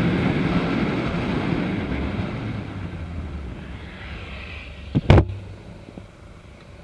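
Riding noise of a Daelim Daystar 125 cc motorcycle, engine and rushing air, dying away steadily as the bike slows. Two sharp knocks close together about five seconds in.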